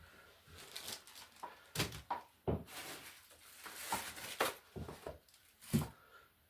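Unboxing and handling sounds: a string of irregular knocks and dull thumps as items are set down, with rustling of packaging through the middle.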